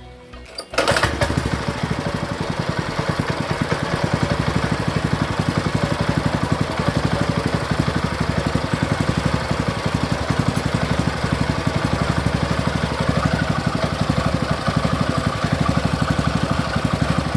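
Small ketinting longtail boat engine running steadily with a fast, even pulse, cutting in abruptly about a second in and never stalling.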